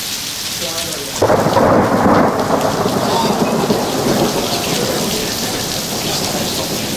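Heavy rain falling steadily. About a second in, a sudden loud thunderclap breaks in and rolls on, slowly fading.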